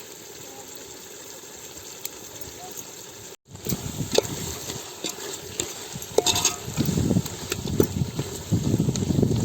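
Chicken pieces frying in masala while a ladle stirs them round the pot. It starts as a low, steady sizzle, breaks off briefly about three seconds in, then comes back as louder, irregular scraping and clinking of the ladle against the pot.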